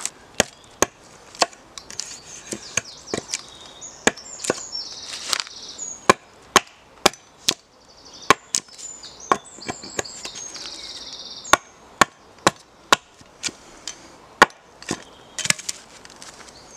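Small axe chopping into a wooden pole to cut a notch: sharp, irregular strikes, about one or two a second with short pauses in between.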